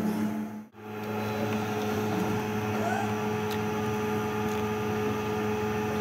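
Steady background hum made of a few constant low tones, cut off by a brief dropout about a second in and then running on evenly, with a few faint clicks.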